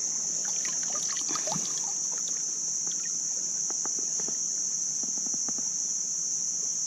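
A steady, high-pitched insect chorus shrilling without a break, with scattered light clicks and taps as a small sunfish is handled, in the first couple of seconds and again around four to five seconds in.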